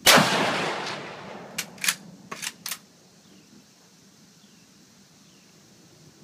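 An M44 Mosin-Nagant carbine in 7.62×54R fires one loud shot, its echo dying away over about a second. Four sharp clacks follow between about a second and a half and three seconds in: the bolt being worked to eject the case and chamber the next round.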